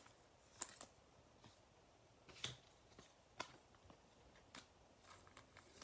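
Faint handling of Topps Chrome baseball cards: several short, sharp clicks and flicks as cards are picked up and laid down on a playmat.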